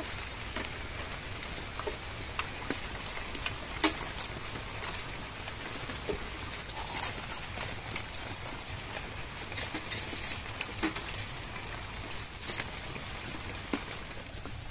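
Fish being cut into pieces on a floor-mounted boti blade and set down on a steel plate: occasional short clicks and taps over a steady background hiss.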